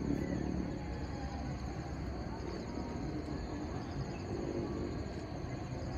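Outdoor ambience: a thin, steady high insect trill over a low rumble, with faint distant voices.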